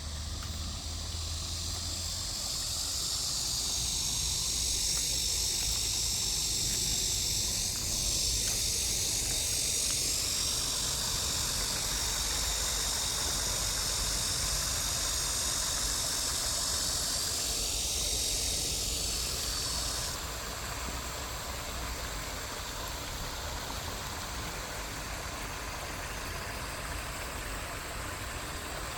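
A brook flowing, a steady rushing of water. A high, even hiss lies over it for most of the first two-thirds and cuts off suddenly.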